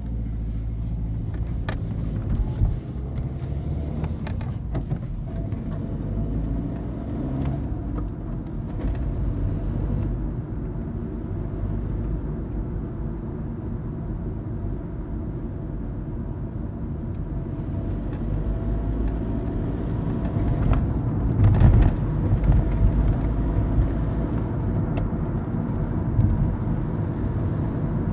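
Inside a moving car: a steady low rumble of engine and road noise, with a few faint clicks and knocks and a louder bump about three-quarters of the way through.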